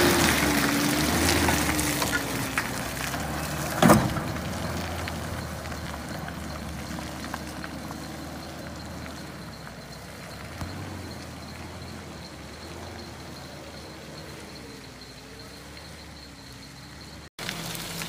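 A vehicle engine running, its pitch wavering up and down, growing steadily fainter, with one sharp knock about four seconds in.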